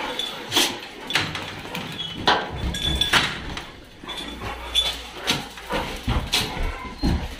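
Several dogs moving about on a hard tiled floor: scattered sharp clicks and knocks from their paws and claws, with a low rumble underneath from about two and a half seconds in.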